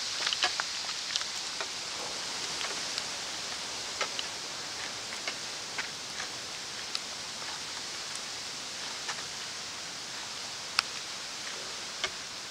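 Footsteps and the rustle of carried gear on a forest portage trail and bare rock: scattered light ticks and taps, several in the first second or so and a sharp one near the end, over a steady hiss.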